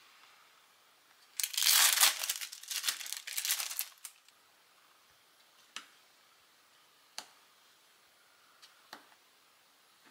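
Plastic film crinkling for about two and a half seconds as a wrapped cheese slice is peeled open. After that come a few separate sharp taps of a small knife against a plastic cutting board as the cheese is cut.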